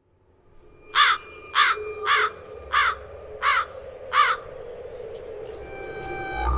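A bird calling six times in a row, short calls about two-thirds of a second apart, then a low drone building near the end.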